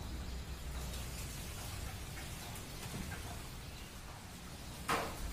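Quiet background hum with a single short, sharp knock near the end.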